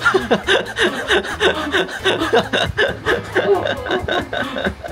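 A man laughing hard in rapid, repeated bursts.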